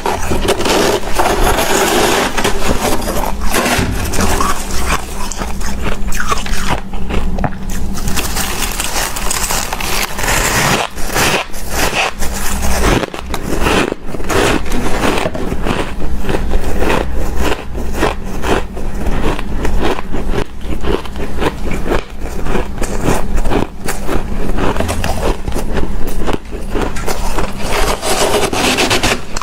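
Shaved ice being scooped and bitten into close to the microphone: continuous crisp crunching and scraping, many crunches in quick succession.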